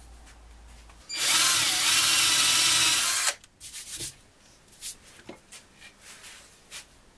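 Power drill boring a pivot hole into a wooden blank for about two seconds, its motor pitch sagging briefly under load before it stops. Light clicks and knocks of handling follow.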